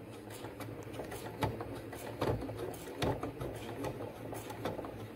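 Electric domestic sewing machine stitching very slowly along the folded edge of a fabric zipper tab: a steady motor hum with uneven clicks of the needle going through.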